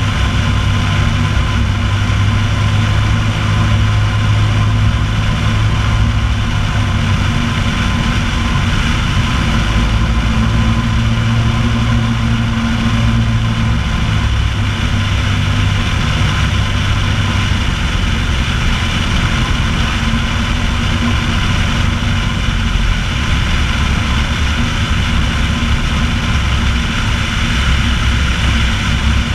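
Piper Pacer's engine and propeller running steadily in flight. The engine note shifts lower a little past halfway through.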